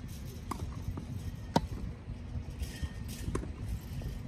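Tennis ball struck by racquets during a rally on a grass court: sharp pops spaced a second or two apart, the loudest about a second and a half in and another a little past three seconds, over a low steady rumble.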